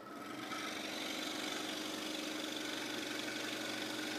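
Electric drill motor spinning up over the first half second, then running at a steady speed with an even hum.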